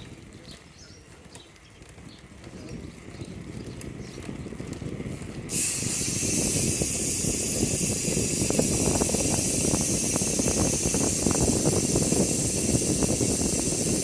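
Bicycle with a Boarse rear hub rolling: quiet at first with a few faint ticks, then about five and a half seconds in a sudden, steady rush of wind and road noise with a rough low rumble takes over.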